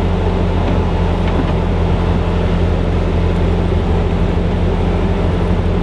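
Engine of a piece of earthmoving equipment running at a steady speed, a constant low hum with no revving.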